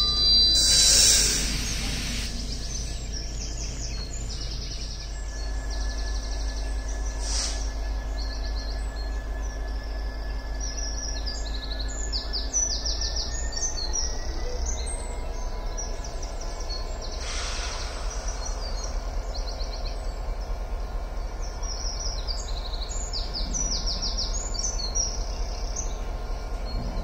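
Songbirds singing, many short chirps and trills, over a steady low rumble, with a brief rush of noise about a second in.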